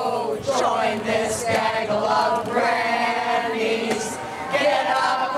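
A group of men's and women's voices singing a protest song together.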